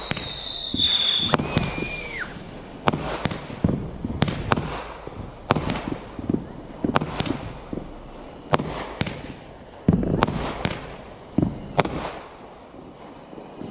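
Fireworks going off: a string of sharp bangs at irregular intervals, some louder than others, with two falling whistles in the first two seconds.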